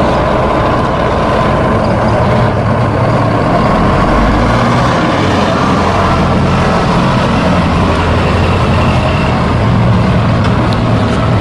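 Diesel engine of a vintage Routemaster double-decker bus running at a steady note as the bus pulls away and drives past.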